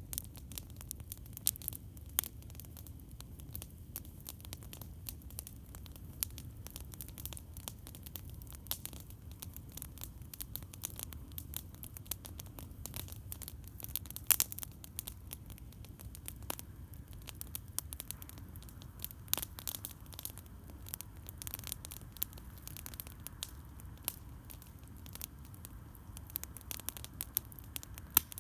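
Campfire crackling: irregular sharp pops and snaps of burning wood, some louder than others, over a steady low rumble.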